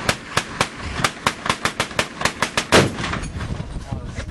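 Hand-cranked Gatling gun firing a rapid, even string of shots, about four to five a second. A louder shot comes just under three seconds in, and then the firing stops.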